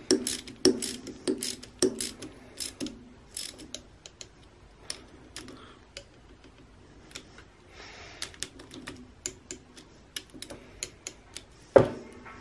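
Small socket ratchet clicking in short runs as the end-cap bolts of an electric trolling motor are tightened, quick at first and more scattered later, with a louder knock near the end as the tool is set down.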